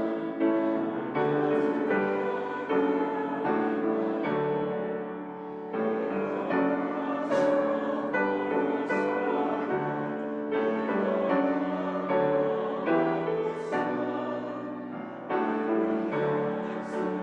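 Piano playing a slow hymn in full chords, with voices singing along.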